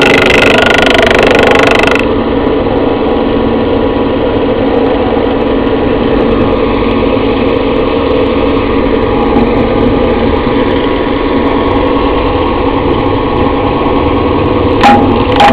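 Yager 11-inch thickness planer running steadily under power, with one sharp knock near the end.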